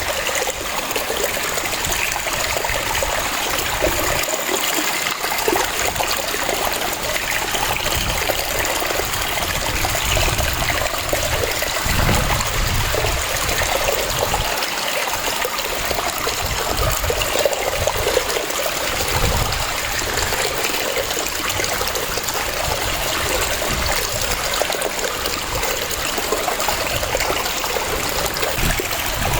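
Waterfall: water cascading and splashing in a steady, continuous rush with a shifting low rumble.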